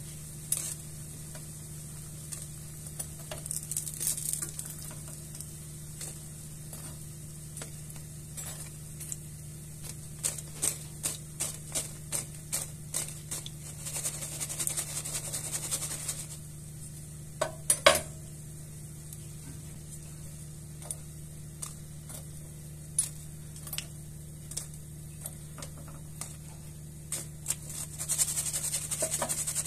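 Hot frying oil sizzles in a pan in short spells while metal tongs and a wire-mesh strainer tap, clink and scrape against the pan, lifting out fried potato pieces. There is one loud knock about halfway through, over a steady low hum.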